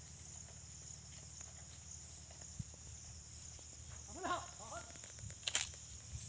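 Faint field ambience during bullock ploughing: a steady high hiss and low rumble, with two or three short rising-and-falling calls about four seconds in and a sharp click a second later.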